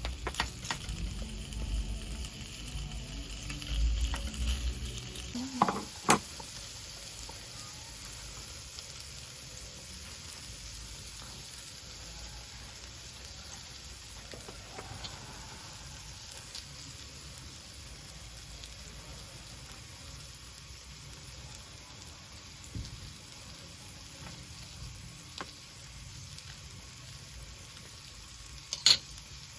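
Food sizzling on a hot grill, a steady hiss, with a sharp click about six seconds in and another near the end.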